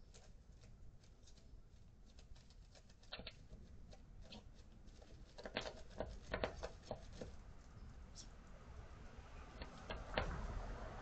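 Faint outdoor background hiss with scattered light ticks and scrapes. Small clusters of louder clicks come about three seconds in, around six seconds in and again near the end.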